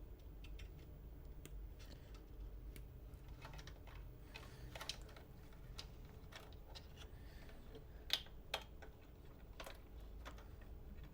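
Scattered light clicks and taps of hands fitting cables and connectors inside a computer case, with two sharper clicks about eight seconds in, over a faint low hum.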